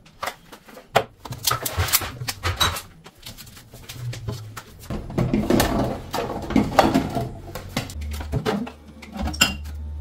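Plastic food containers and squeeze bottles being taken out of a refrigerator: repeated knocks, clatter and scrapes against the shelves and door bins.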